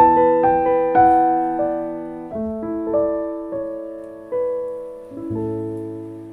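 Background music: a piano playing slow, gentle chords, each note struck and left to ring, growing quieter toward the end.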